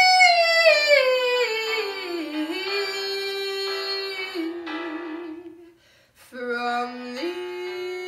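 A woman sings a high, loud held note that glides down over about two seconds, ending the song, and the keyboard accompaniment plays on with sustained chords. The accompaniment breaks off briefly about six seconds in, then resumes.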